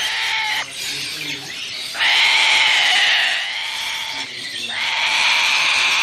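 Parrot screeching in long harsh calls: a short one at the start, then a long call from about two seconds in, and another starting near the end.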